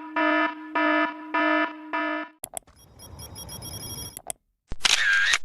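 Sound-effect clips played one after another: an electronic alarm buzz pulsing on and off about four times, then a short noisy rattle with clicks, then a brief wavering tone near the end.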